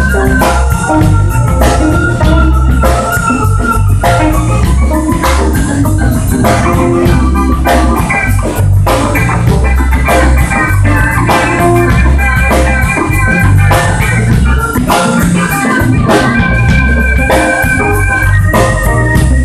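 Live blues band playing: a keyboard with an organ sound holds sustained chords over a drum kit and electric guitar.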